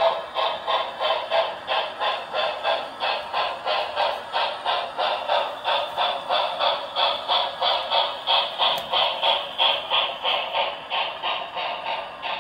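Sound unit of an HO scale Santa Fe 'Blue Goose' streamlined steam locomotive model, chuffing in a steady rhythm of about three chuffs a second as the engine runs.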